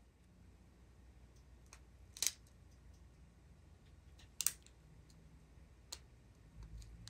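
Small plastic bags of resin diamond-painting drills being handled: a few faint clicks and crinkles, with two sharper ones about two and four and a half seconds in.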